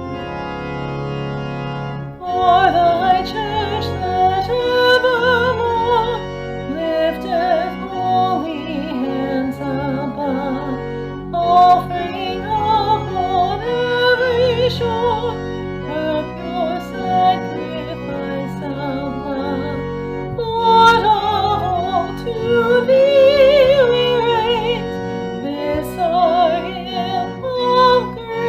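Sacred solo song: a singer with wide vibrato sings a slow melody over sustained keyboard chords, the voice coming in about two seconds in after a bar of accompaniment alone.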